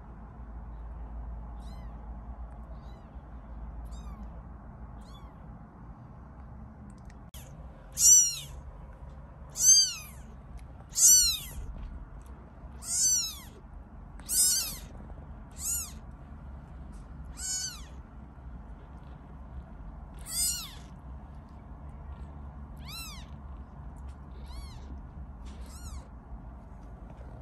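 Tiny kittens meowing: about eleven short, high-pitched calls, each rising and then falling in pitch, beginning about eight seconds in and spaced one to three seconds apart. The first few are the loudest. A faint low hum runs underneath.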